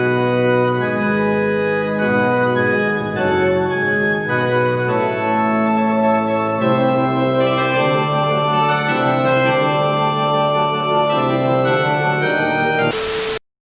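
Organ music: sustained chords that change every second or so, ending in a short burst of hiss and a sudden cut-off.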